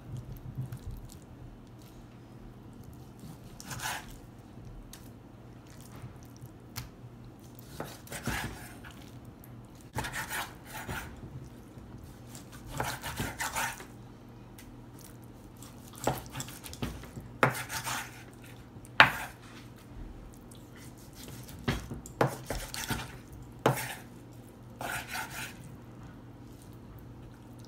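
Kitchen knife slicing through raw suadero beef and knocking on a bamboo cutting board, in irregular strokes a few seconds apart, with a few short scraping sounds.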